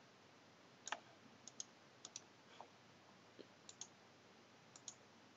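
Computer mouse buttons clicking, a handful of sharp clicks that mostly come in quick pairs, over faint room tone.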